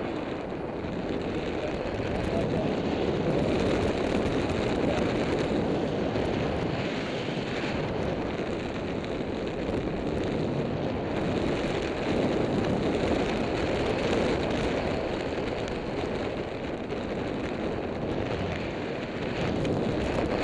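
Wind rushing over a camera microphone in gliding flight under a tandem paraglider: a steady rush that swells and eases a little, with no engine.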